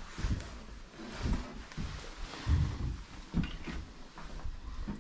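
Slow footsteps, a low dull thud about once a second, on the floor of a small room.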